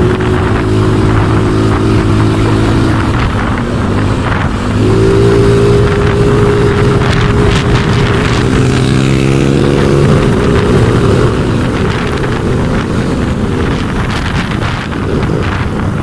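Motor scooter engine running under way. Its pitch rises as the rider opens the throttle about five seconds in, holds, then drops off after about eleven seconds, leaving mostly wind rush on the microphone.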